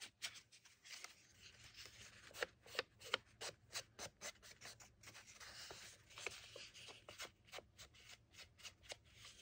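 Foam-padded ink blending tool rubbing and dabbing along the edge of a paper page: a faint, quick run of short scratchy strokes and taps.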